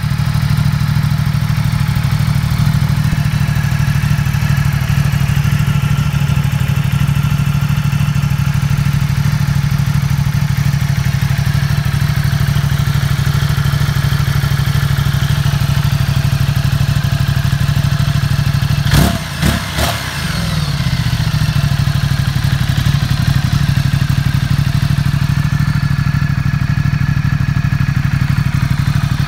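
Ducati Multistrada 1260 Pikes Peak's 1262 cc Testastretta DVT V-twin with its Termignoni exhaust, idling steadily at a constant pitch. A few brief knocks sound about two-thirds of the way through.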